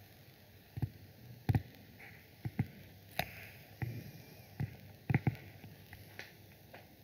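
Scattered sharp clicks and light taps from a computer mouse being used to scroll, roughly one a second and some in quick pairs, over a faint low hum.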